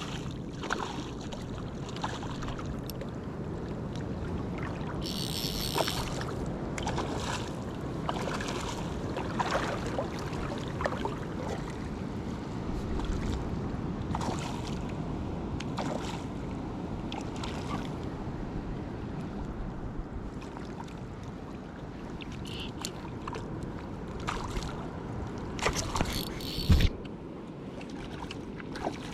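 Shallow water sloshing and swishing with wind on an action camera's microphone, broken by scattered clicks and a few short high-pitched buzzes, and a sharp knock near the end.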